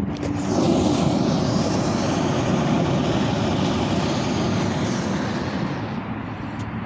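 Damaged 5S lithium-polymer drone battery in thermal runaway, venting gas and flame with a loud, steady hiss that sets in about half a second in and eases off slightly near the end.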